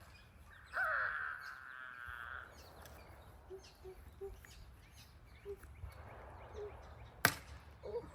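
A plastic wiffle bat cracks once against the ball near the end. About a second in there is a loud wavering cry lasting a second or so, over faint outdoor background with scattered bird chirps.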